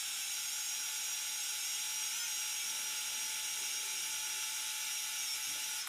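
Surgical power drill running at a steady speed, driving a K-wire through a centering sleeve in the plate into a synthetic bone model. A steady high whine that cuts off suddenly at the end.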